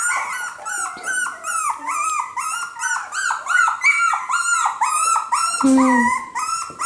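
Young cockapoo puppies, about four weeks old, yipping and whining over and over in short high cries, about three a second, sometimes two at once.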